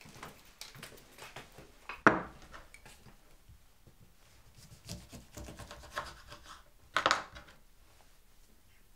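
Handling sounds at a kitchen counter. A sharp knock about two seconds in as something is set down on the worktop, then light scraping and tapping at a chopping board while a lemon is cut and squeezed. Another clatter comes about seven seconds in.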